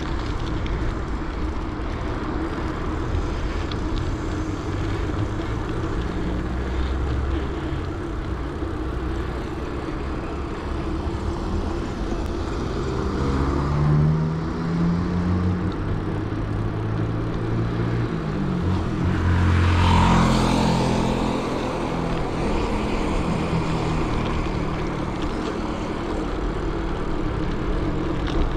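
Wind rumbling on the microphone of a moving bicycle, with motor vehicles passing on the road; the loudest passes come about 14 and 20 seconds in.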